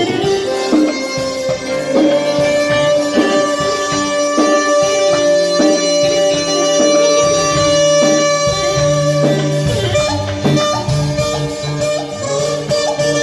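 Live Albanian folk-style band music. A clarinet leads and holds one long note for several seconds, over electric guitar and keyboard accompaniment with a bass line.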